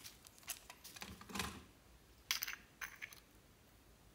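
Light plastic handling: a soft rustle about a second in, then two quick clusters of small clicks and clinks as a small clear plastic pot is twisted open.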